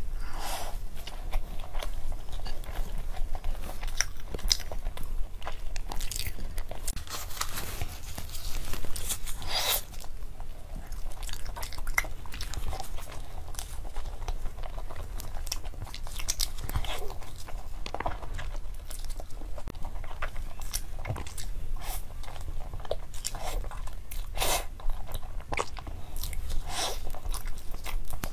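Close-up eating sounds: a person chewing pastry, with irregular sharp crunchy bites scattered throughout, over a low steady hum.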